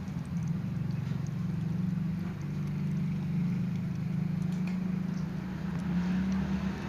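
A kitten lapping water from a cut-down plastic bottle, heard as faint soft ticks under a steady low hum, which is the loudest sound.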